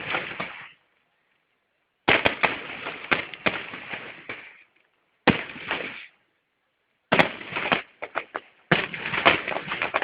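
Fireworks going off in clusters of rapid bangs and crackles, four or five bursts separated by short silent gaps.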